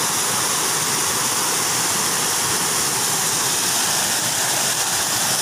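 Water pouring over a small concrete weir and splashing into the pool below, a steady rush of falling water close to the microphone.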